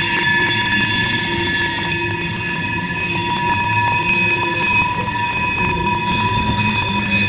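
Tank cars of a CSX freight train rolling past, their wheels squealing in several steady high-pitched tones over the low rumble of the train.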